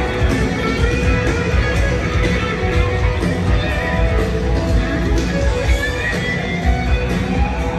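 Live country-rock band playing through a stadium sound system, guitars prominent, heard loud and steady from among a moving crowd.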